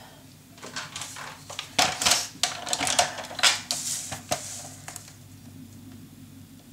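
Paper being handled and slid into place on a paper trimmer: light rustling with a series of small clicks and taps against the trimmer board, most of them in the first four or five seconds, then softer handling.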